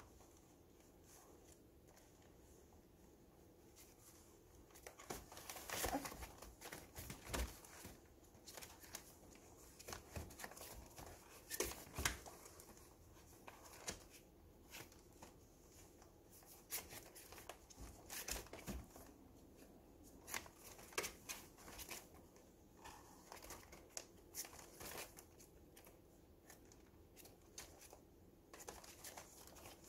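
Newspaper crinkling and rustling under two puppies tussling on it in a plastic crate, in irregular crackles that begin about four seconds in, over a faint steady hum.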